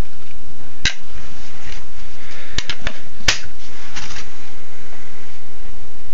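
Sharp metal clicks from handling a large stainless steel folding knife, one about a second in and a quick cluster of four a second and a half later, over a steady hiss.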